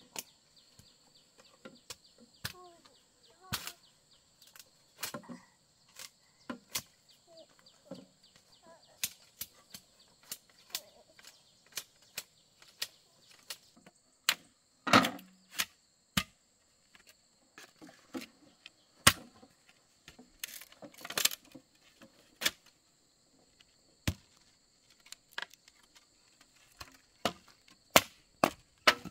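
Bamboo being chopped and worked with hand tools: irregular sharp knocks and cracks, one or two a second. A steady high-pitched insect drone runs behind them.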